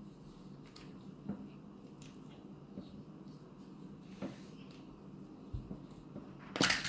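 Plastic toy packaging being handled: scattered small clicks and taps, then a loud crackling burst near the end as the package is torn or popped open.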